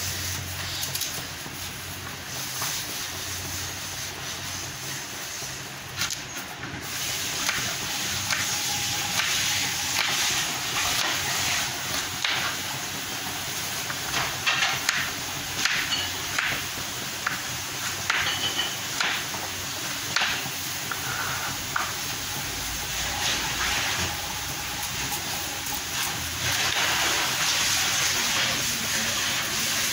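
Kitchen knife cutting a carrot on a plastic cutting board: irregular taps and cuts against the board, over a steady hiss.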